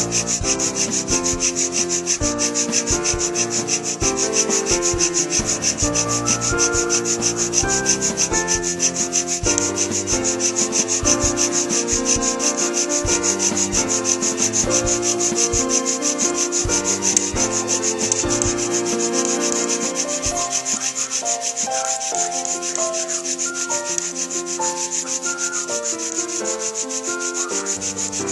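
Hand-drill friction fire: a purple coneflower spindle spun back and forth between the palms, grinding into an arborvitae hearth board with a steady, rapid rubbing and shifting squeaky tones.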